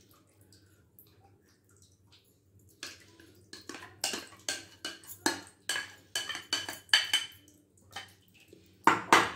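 A serving spoon clinking and scraping against a bowl as the last of the custard is scraped out into a glass dish. It starts about three seconds in as quick taps, two or three a second, and is loudest near the end.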